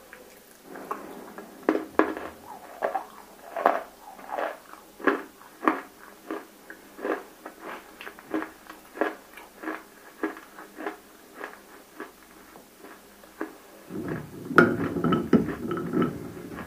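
Close-up chewing and crunching of water-soaked, fully roasted edible clay (nakumatt): crisp crunches come about two a second. A louder, denser burst of crunching comes near the end.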